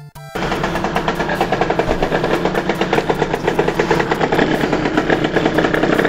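Go-kart engine running close up with a rapid, even pulsing, starting about a third of a second in as a short music sting ends.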